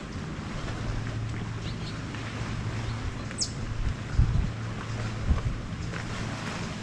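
Wind on the microphone over a steady low drone, with a couple of low thumps in the second half and one short, high falling chirp about three and a half seconds in.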